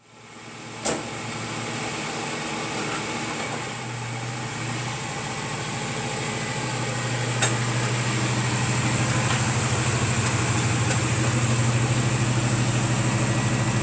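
Oldsmobile car engine running at low speed as the car rolls up close, a steady low exhaust hum that builds a little about four seconds in and again a few seconds later. Two sharp clicks cut through it, one about a second in and one about seven seconds in.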